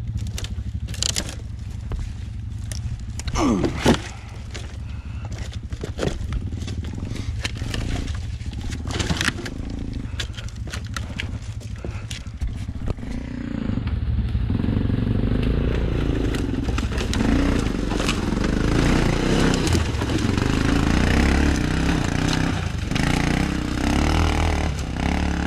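ATV engine running steadily, with repeated crunching, snapping and clattering of sticks and logging debris. About halfway through the engine sound fills out and grows louder.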